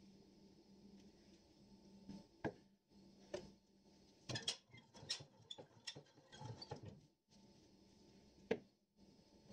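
Scattered light clicks and knocks of brass trumpet parts being handled and set down on a workbench, with a shop cloth handled and spread out; busiest in the middle, with one sharper knock near the end.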